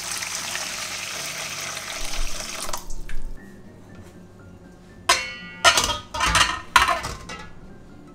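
Hot water poured in a steady stream into a stainless steel mixing bowl, splashing as it fills, until the pour stops just under three seconds in. About five seconds in come several sharp knocks with brief metallic ringing over two seconds, as a glass bowl of cream cheese is set down into the steel bowl of hot water.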